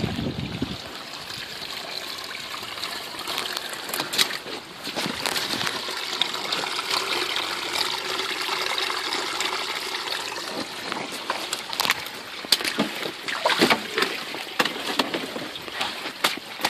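Floodwater running and pouring past a wrecked car's body, a steady rushing trickle. Toward the end, scattered sharp rustles and steps break in over it.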